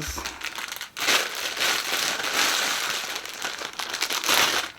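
Plastic packaging crinkling and rustling as it is handled and opened, with a brief pause about a second in.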